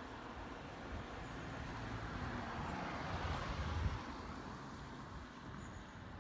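Steam locomotive 60163 Tornado and its support coach running past, a rumble and hiss of the train that swells to its loudest about halfway and then fades.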